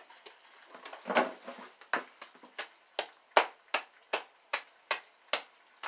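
Floured hands patting and slapping a ball of fry bread dough: a soft handling rub, then from about two seconds in a quick run of about a dozen sharp pats, some three or four a second.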